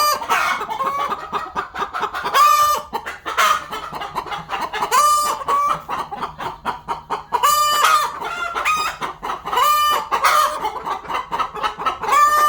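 Chickens clucking continuously, with a loud, drawn-out squawk about every two and a half seconds, six times in all.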